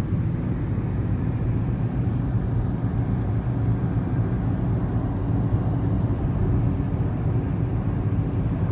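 Steady low drone of road and engine noise inside a moving car's cabin at highway speed.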